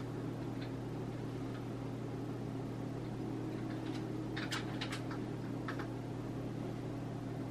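Steady low hum, with a short run of sharp clicks about four and a half seconds in as the next position is keyed in and the SG90 servo moves the point blades a small step.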